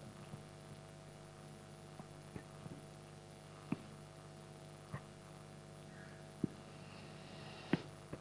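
Quiet hall room tone: a steady low electrical hum from the sound system, with several faint clicks and knocks scattered through it, the clearest in the second half.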